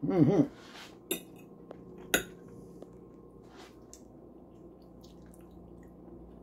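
A short "mm-hmm", then a metal fork clinking against a plate twice, about one and two seconds in, with a few fainter taps after.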